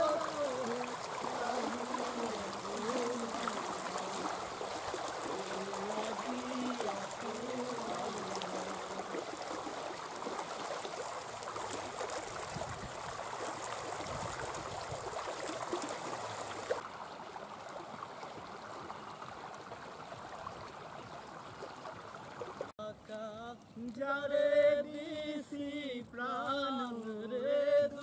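Shallow, fast-flowing muddy river water rushing and gurgling around a raft of banana tree trunks, as a steady rush. A voice rises and falls over it for the first several seconds, and a voice sings or speaks clearly near the end.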